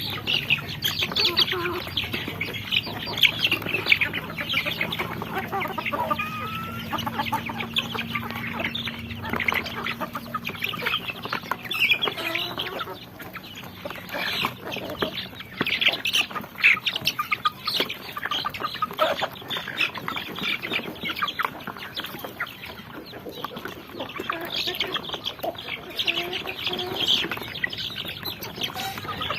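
A group of young chickens peeping and cheeping continuously, a dense run of short high-pitched calls with some lower clucks mixed in.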